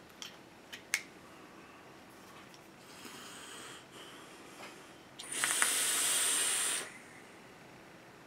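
A few small metal clicks from handling the dripping atomizer, then a hard draw through the Tugboat RDA: a loud hiss of air for about a second and a half, with a few crackles from the dual micro coils firing. The build runs very hot, with coils the owner guesses at about 0.17 ohm.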